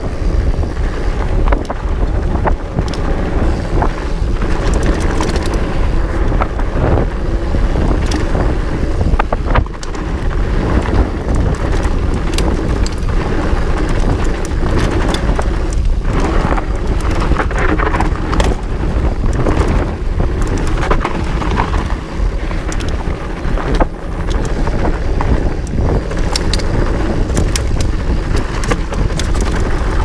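Trek Farley EX 8 fat bike riding fast down a rough dirt downhill trail: a constant loud rumble of wind buffeting the camera microphone and tyres on the ground, with frequent knocks and clatters as the bike rattles over bumps.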